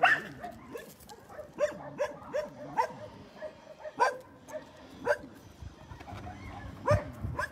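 Dogs giving short, sharp barks and yips, one every second or so, with no steady rhythm.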